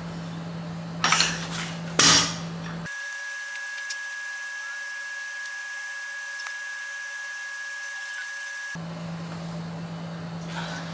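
Iron dumbbell plates knocking and clinking twice, about one and two seconds in, as a set of dumbbell curls ends. Then a steady high tone runs for several seconds while the low room hum drops out.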